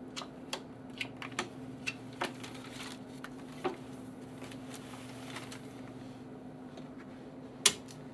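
Poker chips and cards being handled on a table: a run of light clicks, most of them in the first four seconds, and one sharper click near the end. A steady low hum runs underneath.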